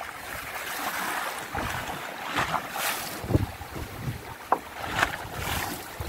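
Wind buffeting the microphone and choppy sea washing against a small fishing boat's hull, with a few short, louder splashes and gusts.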